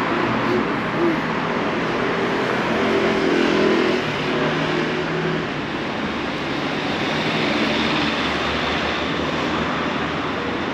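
City street traffic: a motor vehicle's engine passing, loudest about three to five seconds in, over a steady hum of road noise.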